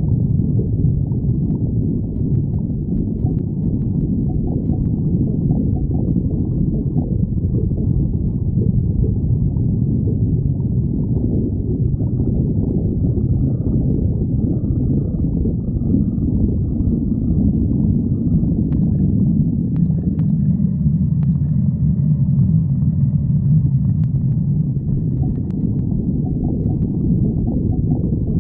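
A person's stomach growling without a break: low, shifting rumbling and gurgling, with a few faint clicks in the second half.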